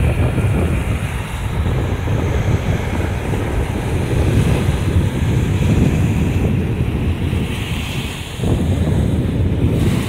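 Sea surf washing in over stones and sand at the water's edge, with heavy wind rumble on the microphone. The rumble drops briefly a little after eight seconds in.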